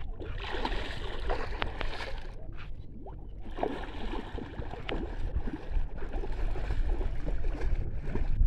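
A large hooked fish thrashing and splashing at the water's surface while being played on a rod, in two spells: from about half a second to two seconds in, and again from about three and a half seconds on.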